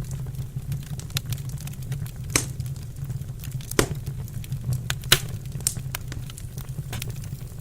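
Wood fire burning in a fireplace, crackling steadily over a low rumble, with a few louder pops; the sharpest comes about five seconds in.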